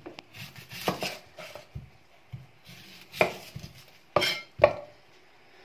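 Kitchen knife slicing through a red onion into rounds on a wooden cutting board: several separate knocks of the blade on the board, the loudest two near the end.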